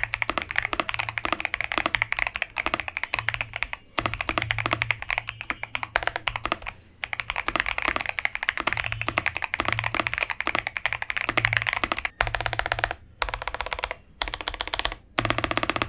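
Monka 3087 Pro gasket-mounted TKL mechanical keyboard being typed on quickly in a sound test, a fast stream of key clacks broken by a few brief pauses.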